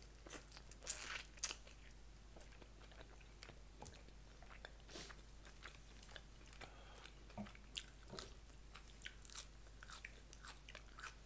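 Close-up mouth sounds of a person biting and chewing food, with crisp, crackly bites and small wet clicks scattered throughout. The louder bites come in the first second and a half.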